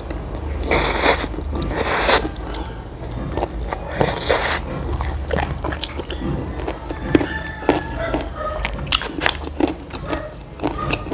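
Noodles slurped up from chopsticks, three long slurps in the first five seconds, then close-up wet chewing with many small clicks and smacks.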